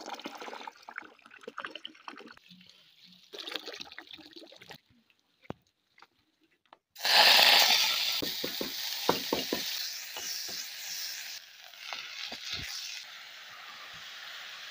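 Hands swishing watercress about in a basin of water, faint and broken. About seven seconds in, a sudden loud hiss of cooking starts as chopped watercress and tomato are tipped into a hot, steaming pot, with light clicks of handling, then eases off as the greens are stirred in.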